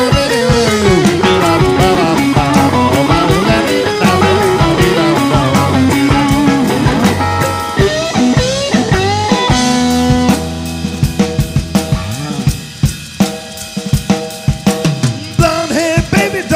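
Live rock band with electric guitars, bass, drums and keyboards playing an instrumental passage with a sliding lead line. About ten seconds in, the band thins out to drum hits and short accents, and the full band comes back in near the end.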